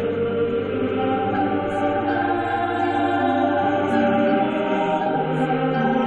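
Background music of slow, sustained chords, the notes held long and changing every second or so, with no beat.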